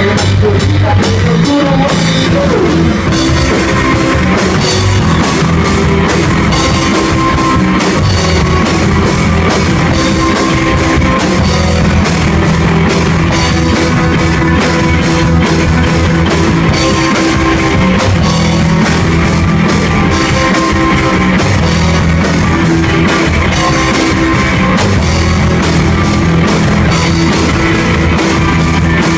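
Rock band playing live, loud and unbroken, with a drum kit keeping an even beat under guitars.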